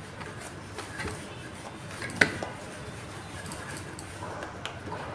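Hands kneading wheat-flour dough in a stainless steel bowl: soft pressing and rubbing, with the bowl clinking now and then and one sharp clink about two seconds in.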